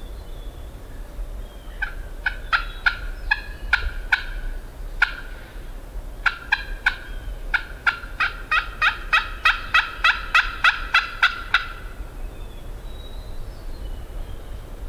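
Turkey yelping. A few scattered notes are followed, from about six seconds in, by a long even run of yelps at about four a second that stops near twelve seconds, over low wind rumble.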